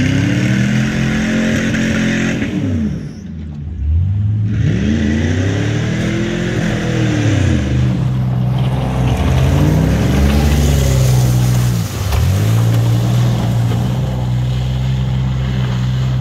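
AWD Plymouth Voyager minivan's V6 engine revving hard in several long rising and falling surges while it churns through deep mud. A rushing hiss of spinning tyres and flung mud runs under the engine.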